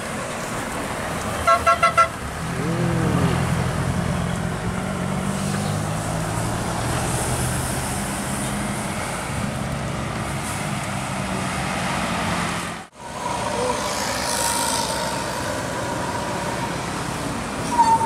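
A bus horn gives about four quick short toots, then a tour coach's diesel engine runs heavily as the coach passes close. Near the end another coach passes with a short horn note.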